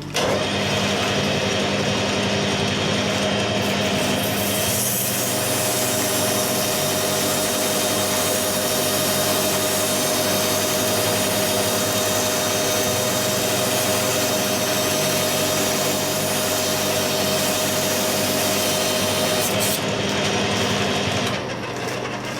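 Metal lathe running while abrasive paper is pressed against the spinning steel drive shaft, giving a steady rubbing hiss over the lathe's motor hum. It starts suddenly and stops about a second before the end.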